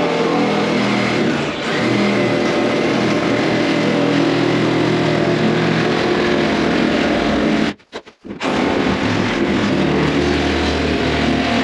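Reciprocating saw (Sawzall) cutting through OSB wall sheathing to open a window hole. It runs steadily and loudly, stops briefly about eight seconds in, then starts cutting again.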